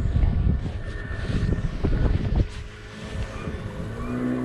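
Wind buffeting the microphone in gusts, easing off after about two and a half seconds; near the end the steady drone of a boat engine comes in.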